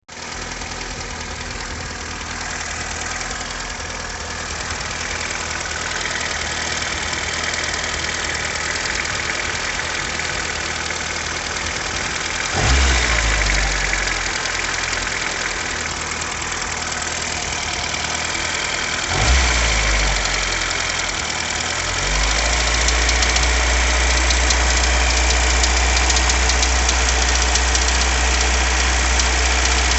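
Volkswagen Jetta Mk2 engine running with a knock in the engine. It is blipped twice, about 12 and 19 seconds in, then runs louder and steadier from about 22 seconds on.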